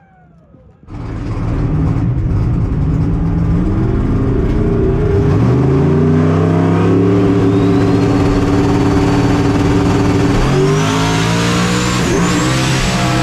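LS V8 drag car heard from inside the cockpit, running loud after a quieter first second. Its note climbs about five seconds in and holds high with a rising whine over it, then changes pitch again near the end.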